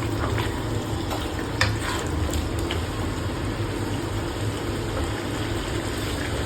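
Chicken handi curry simmering and sizzling steadily in a pot, with a few light clicks in the first few seconds.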